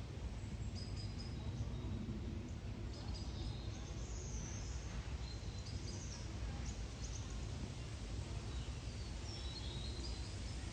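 Small birds chirping in short high notes now and then, over a low steady rumble.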